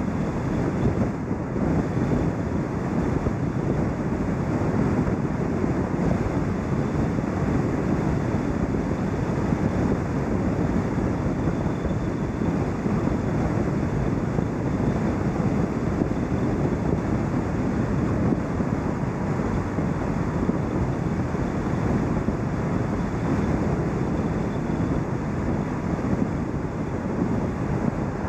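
Steady wind and road noise from a car driving along, with wind rushing over the microphone.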